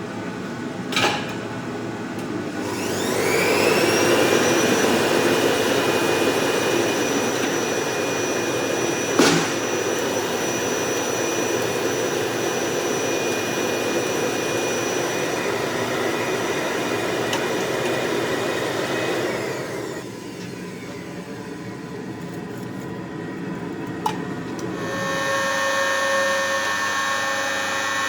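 Electric grinder spinning up with a rising whine and running steadily with grinding noise as steel is shaped, then spinning down about twenty seconds in. A few sharp clicks fall in between, and a different steady machine hum starts near the end.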